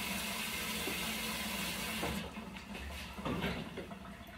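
Kitchen tap running in a steady hiss, shut off abruptly about two seconds in, followed by a few soft clunks.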